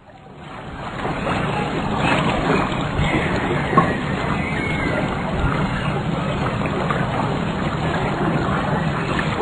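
Water churning and bubbling in a hot tub, a steady rush that fades in over the first second, with a single sharp click about four seconds in.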